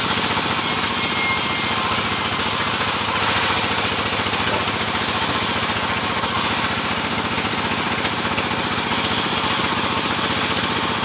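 Engine-driven sawmill machinery running steadily, with a fast, even engine pulse under a loud hiss.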